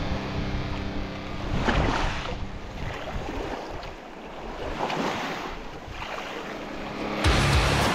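Small waves washing in and out over a pebble shore, in swells every second or two, with some wind on the microphone.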